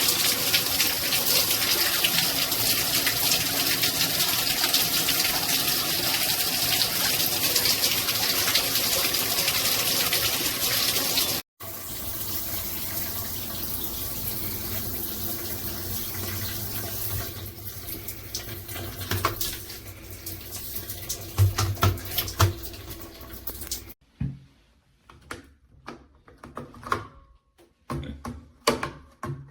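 Shower head spraying water into a shower in a steady, loud hiss. About a third of the way in it drops suddenly to a quieter spray, which breaks into splashes and knocks before stopping, leaving a few faint clicks near the end.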